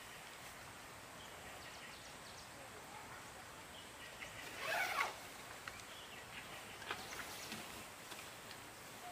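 A jacket zipper pulled once, briefly, about halfway through, over faint rural background; a few light clicks follow.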